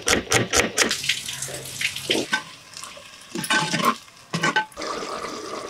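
Quick knife chops on a wooden chopping board, about six or seven strokes a second, for the first second. Then come several short, watery, splashing kitchen sounds.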